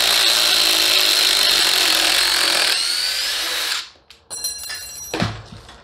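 Two cordless impact drivers, a DeWalt DCF850 Atomic and a DeWalt DCF887 XR, hammering together as they back long lag screws out of wood. The sound eases a little near the end and stops about four seconds in. It is followed by a few metallic clinks that ring, and a thud.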